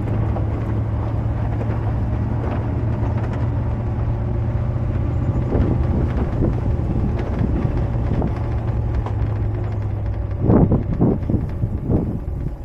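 A vehicle's engine and road noise on a rough dirt road: a steady low drone with rumble. About ten seconds in, the drone eases and a few irregular louder bumps come through.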